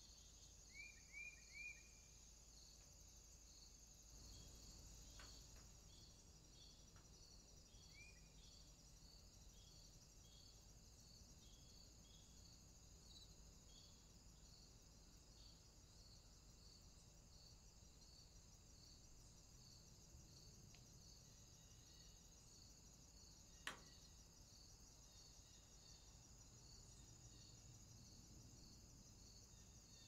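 Faint insect chorus: crickets chirping evenly, about two chirps a second, over a continuous high trill. Three quick short calls come about a second in, and one sharp click comes about three-quarters of the way through.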